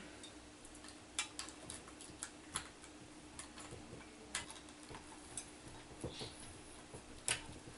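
Faint, irregular clicks and taps of hands working wires and parts into a ceiling fan's switch housing, the sharpest near the end, over a steady low hum.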